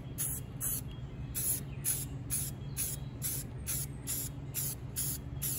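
Aerosol spray-paint can hissing in short, evenly repeated bursts, about two a second, as a base coat is sprayed on.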